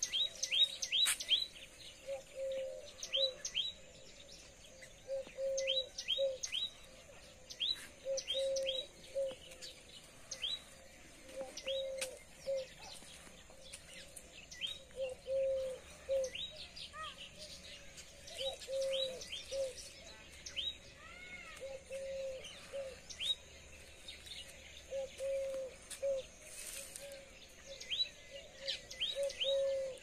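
Several birds calling: rapid series of short high chirps, over a lower call repeated in short groups every couple of seconds.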